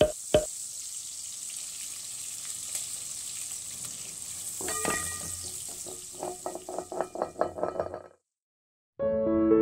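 Steady sizzling of food frying in a pan, opening with two knocks. About halfway through, a run of quick pitched percussive notes joins in. It all cuts off shortly before the end, and soft piano music begins.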